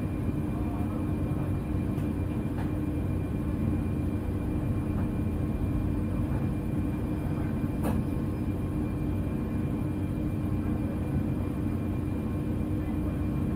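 Steady low drone of cabin noise inside an ATR 72-600 turboprop airliner, with a constant hum tone running through it. Two faint clicks, about two and a half and eight seconds in.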